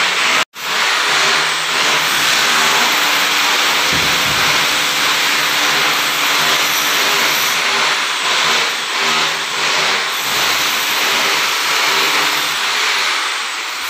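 Electric chipping hammer with a chisel bit breaking into a concrete wall, cutting a chase for copper tubing: a loud, continuous hammering rattle with a motor hum underneath.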